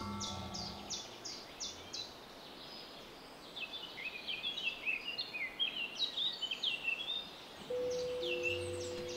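Birdsong from a field recording: small birds chirping in quick, repeated high downward notes, growing into a busy tangle of chirps in the middle. A few steady held tones ring at the start and again near the end.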